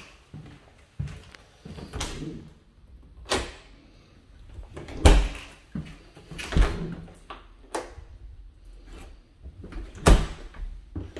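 Footsteps and knocks on hardwood floor and wooden stairs: a string of irregular thuds, loudest about five seconds in and again near the end.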